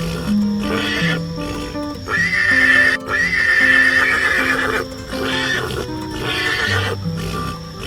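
Horse whinnying, two long calls back to back a couple of seconds in, over background music with a slow stepped melody.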